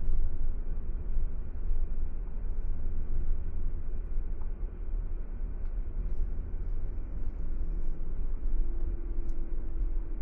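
Car driving along a road: steady tyre and engine rumble, deep and unbroken, with a faint steady hum entering near the end.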